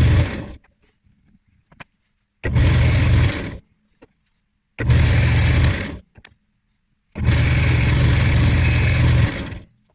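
A woodworking power tool with an electric motor, run in three short bursts, each starting abruptly and dying away as it winds down; the last burst is the longest, about two and a half seconds. A short knock comes right at the start.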